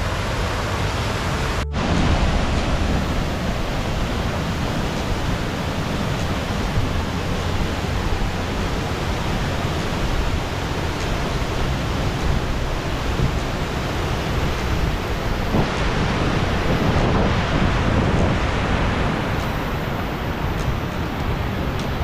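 Steady rush of heavy rain and running water from a flooded stream and waterfall, cutting out for an instant about two seconds in.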